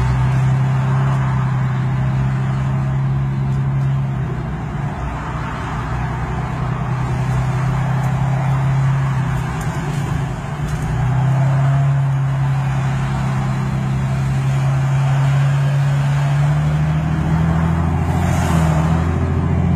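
Moving car's engine and road noise: a steady low drone with tyre hiss, the drone weakening for several seconds in the middle and then returning.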